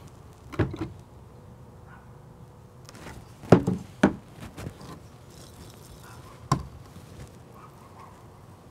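Hard plastic PVC pipe caps and pipe knocking against a stone tabletop as they are handled, picked up and set down: a handful of sharp, short knocks, the loudest about three and a half seconds in.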